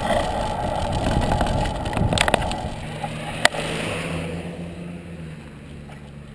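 Wind rushing over a handlebar-mounted camera microphone on a moving road bicycle. It dies away over the last few seconds as the bike slows to a stop. A few sharp clicks come just before it fades.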